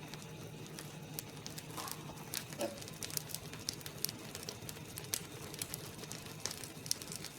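Uthappam batter cooking on a hot griddle, with faint, irregular crackles and pops over a steady low hum.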